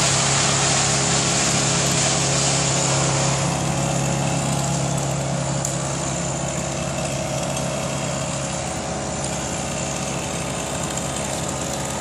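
A small engine running steadily at a constant speed, its higher hiss easing off a few seconds in.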